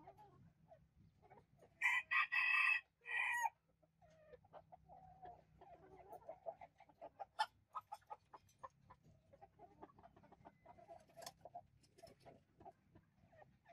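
Northern Vietnamese bantam rooster (gà tre Bắc tít) crowing once about two seconds in, a crow of about a second and a half with a short break near its end. Soft low clucks and small ticks fill the rest.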